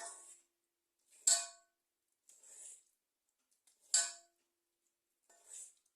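Metal cooking utensils scraping and clinking against a metal pan as the patisa mixture is worked, five short strokes about a second apart. The two loudest, about a second in and near four seconds, ring briefly.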